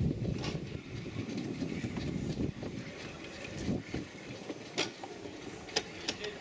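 Small narrow-gauge steam locomotive running slowly on the track, a low rumble of wheels and running gear that grows fainter. Several sharp metallic clicks come in the second half.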